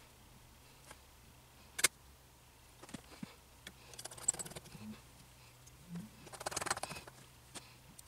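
Small clicks and rattles from handling a metal FEP vat frame, tiny screws and a hand screwdriver while refitting a resin printer's FEP sheet. One sharp click comes a little under two seconds in, followed by two spells of fine clicking and rustling, around four seconds and again around six and a half seconds.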